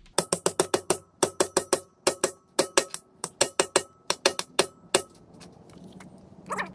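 Rapid metal-on-metal blows in quick runs of three to five, about five a second, each leaving a short metallic ring, stopping about five seconds in: a press-fit bearing being driven onto the high-speed gear shaft of a pumping-unit gearbox instead of being heated on.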